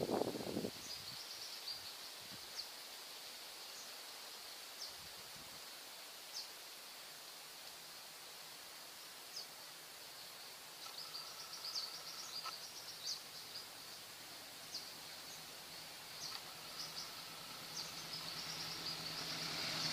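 Steady high insect buzz with scattered short bird chirps, and a brief low bump at the very start. Over the last few seconds the noise of an approaching diesel-hauled passenger train grows steadily louder.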